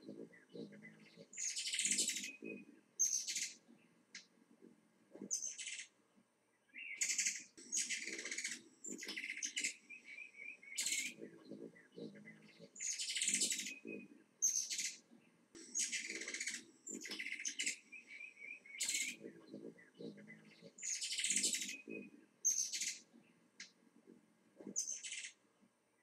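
Wild songbirds singing: short, high song phrases repeating every one to two seconds, with softer chirps in between.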